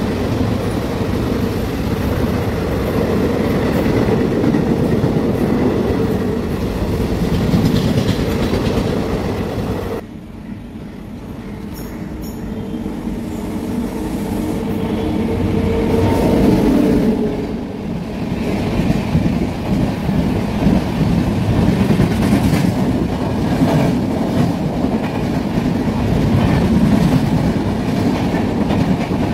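Passenger trains running past at speed, loud and continuous. First comes the tail of a rake of sleeper coaches. After an abrupt cut about ten seconds in, an express hauled by a WAP-7 electric locomotive draws near, building in loudness, and then its LHB coaches run past.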